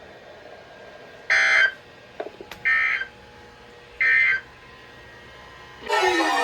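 Emergency Alert System end-of-message data bursts: three short digital warbles about a second apart, sent right after a flood warning to close the alert. Near the end a loud sound with many sweeping, mostly falling pitches starts.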